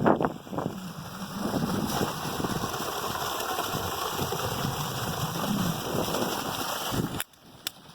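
Steady rushing and splashing of water, cutting off abruptly about seven seconds in.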